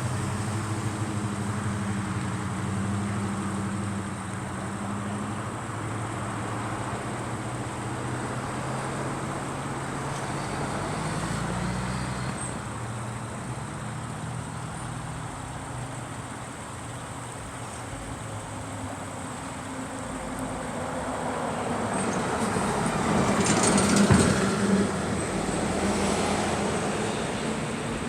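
Road traffic: motor vehicles driving past, with low engine hum and tyre noise. One vehicle passes close, growing louder to a peak about 24 seconds in and then fading.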